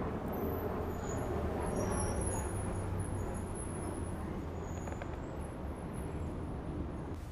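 City street traffic noise: a steady vehicle rumble with a low hum, and short high-pitched squeals coming and going over it.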